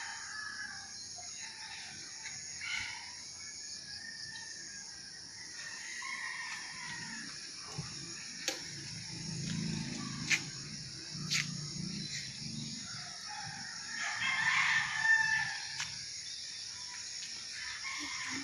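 Rooster crowing more than once, the loudest crow about three-quarters of the way through, over a steady high hiss, with a few sharp clicks in between.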